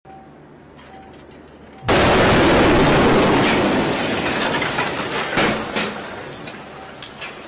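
A van bomb explodes about two seconds in: one sudden, very loud blast that fades away over about four seconds, with several sharper cracks and pops as it dies down.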